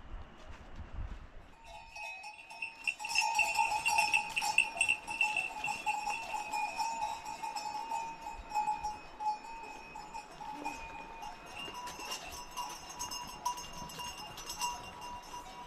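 Bells on livestock jangling with many small clinks, starting about two seconds in.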